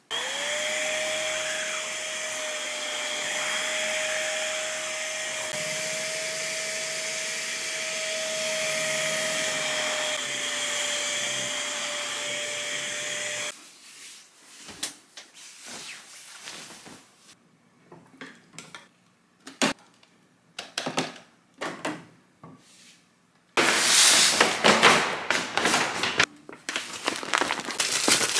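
Cordless stick vacuum with a bedding brush running over a comforter: a steady motor whine over rushing air that spins up at the start and cuts off about halfway through. Then scattered soft knocks and rustling of pillows and bedding, and near the end loud crinkling of a kraft paper bag.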